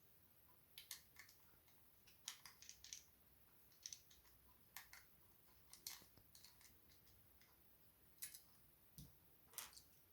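Faint, irregular small clicks and taps of a screwdriver and small screws being worked out of a hard drive's metal mounting housing.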